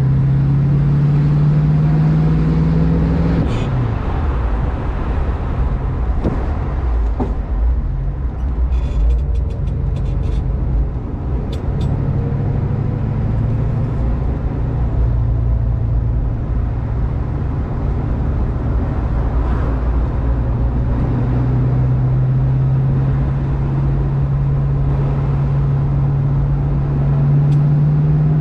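A car driving, its engine note falling as it slows about four seconds in, with a few sharp knocks and a rapid run of ticks in the middle, then the engine note rising as it picks up speed near the end. The knocks fit the clang that the owner hears when the brake pedal is released.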